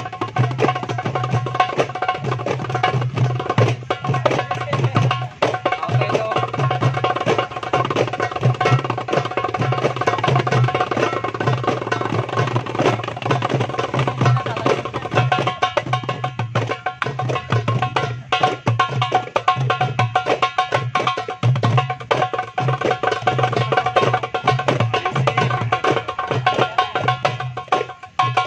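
Several darbukas (goblet drums) played together by hand in a fast jam: a dense, continuous stream of strokes, with deep bass strokes under sharp, ringing higher slaps.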